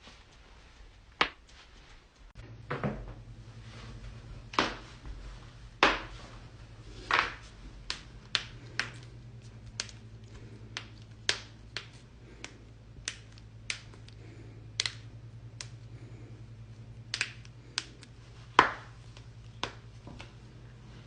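Human joints cracking: about twenty sharp, separate pops at uneven intervals, some louder with a short ring after them. A low steady hum starts about two seconds in.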